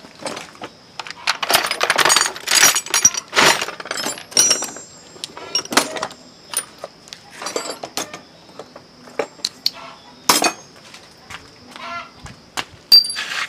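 Metal hand tools and parts clinking and knocking against each other in an irregular series of sharp clatters, busiest in the first few seconds, with a faint steady high whine underneath.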